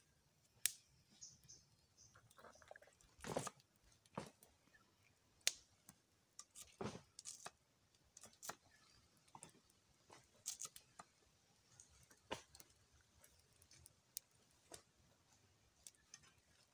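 Knife cutting through food by hand: irregular sharp clicks, snips and short crunches, a few louder cuts standing out against near quiet.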